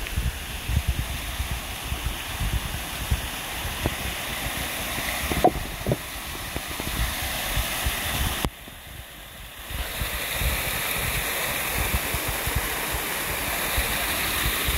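Small waterfall cascading over rock ledges: a steady rush of water that grows fuller in the last few seconds as it comes close. Low, uneven buffeting on the microphone runs underneath.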